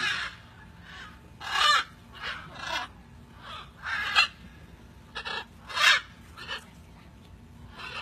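Blue-and-gold macaws squawking: a string of about nine short, harsh calls at uneven intervals, each well under half a second long.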